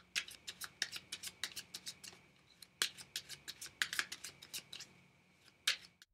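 A deck of Fournier 605 playing cards being cut and handled between two packets: a quick run of sharp card snaps and clicks, a few a second, which stops shortly before the end.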